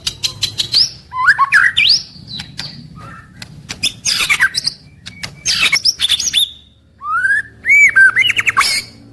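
White-rumped shama (murai batu) singing: varied whistled phrases that glide up and down, mixed with many sharp clicks and harsh notes, with a brief pause about two thirds of the way through.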